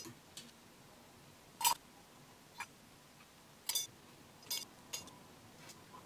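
Light, irregular clicks and taps of a paintbrush against a metal watercolour paint box while mixing paint, about six small knocks spread over the few seconds.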